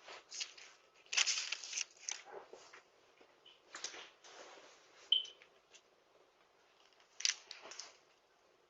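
Faint, irregular rustling and scuffing picked up by a video doorbell's microphone, with a brief high tone about five seconds in.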